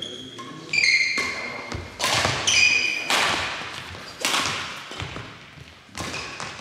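Badminton rally: sharp racket strikes on the shuttlecock about once a second, each ringing briefly in the hall, with short high squeaks of shoes on the court floor between strikes.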